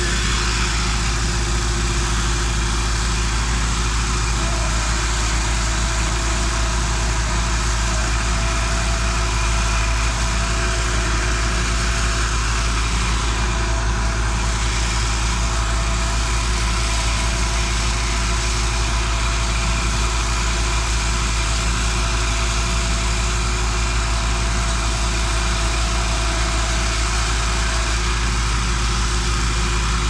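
Mobile trailer concrete mixer pump running steadily, its engine note even and unchanging.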